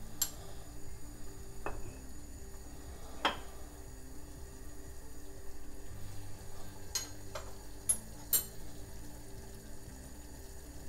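Saucepan of water at a rolling boil on a gas hob, bubbling steadily, with a few sharp ticks and taps scattered through.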